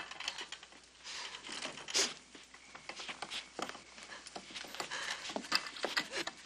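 Scattered rustling, shuffling and footsteps of people moving about a room, heard as an uneven string of short, sharp noises.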